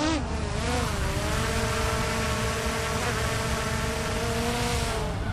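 Quadcopter camera drone hovering close by: a steady propeller whine whose pitch wavers in the first second, then holds level over a rushing noise. It cuts off abruptly about five seconds in.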